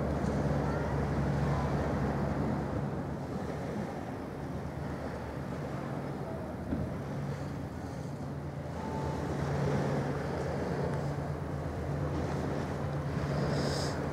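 Steady low engine hum with a constant drone tone and a rumbling background.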